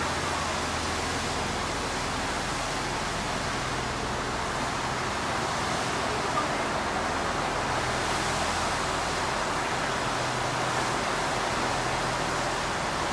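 Steady rushing hiss of a high-pressure water jet gushing up from a burst water main through the road surface.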